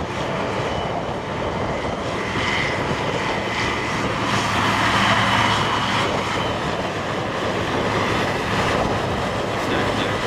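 Big diesel tractor engines running steadily under heavy load while pulling ploughs in a speed-ploughing race.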